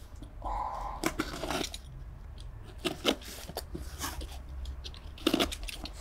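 Packing material being handled during unboxing: a run of short crunches, crackles and rustles, with a brief scraping squeak about half a second in.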